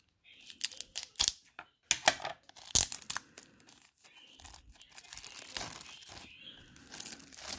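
Clear plastic wrap around a stack of trading cards crinkling and tearing as it is pulled open by hand: a run of sharp crackles, then a softer, steadier rustle.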